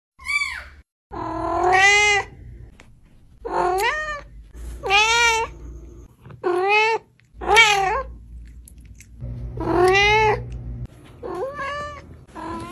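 Domestic cat meowing over and over, about nine drawn-out meows roughly a second apart, each rising then falling in pitch.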